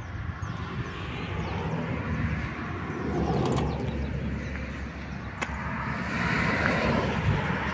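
Highway road-traffic noise: a steady low rumble of tyres and engines, with vehicles swelling past about three seconds in and again near the end.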